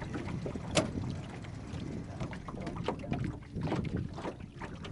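Open-air noise on a small fishing boat: wind buffeting the microphone over a low rumble, with scattered light knocks and one sharper click about a second in.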